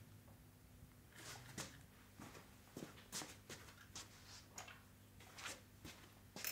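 Faint, scattered clicks and rustles of objects being handled, about a dozen short sounds over a quiet room tone.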